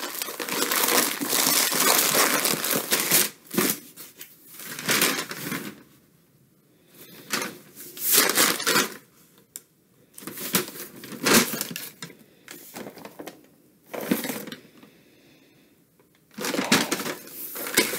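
Paper or plastic packaging rustling and crinkling in irregular bursts with short pauses, as items are handled and unwrapped.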